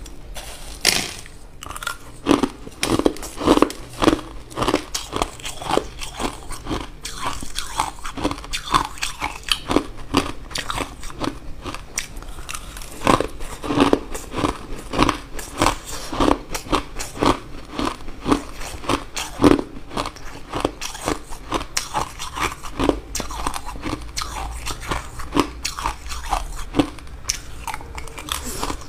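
Crushed white ice being bitten and chewed close to a clip-on microphone: an unbroken run of crisp crunches, about two or three a second.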